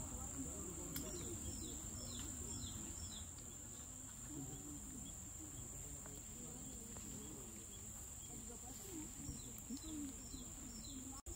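Outdoor ambience: a steady high-pitched insect drone, with a bird calling a quick run of short descending notes twice, about a second in and again near the end, over a faint low murmur.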